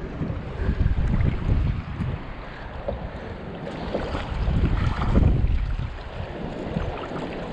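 Wind buffeting the microphone: a gusty, uneven low rumble that swells and eases, over a wash of outdoor noise.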